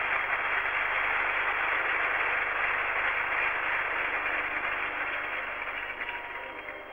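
A steady, even rushing noise with no pitch or rhythm, fading over the last second.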